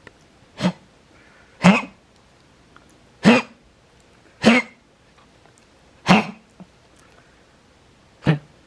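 An old dog coughing in a prolonged bout: six short, harsh coughs about a second to a second and a half apart. This is the cough of congestive heart failure, with an enlarged heart and fluid in the lungs found on X-ray.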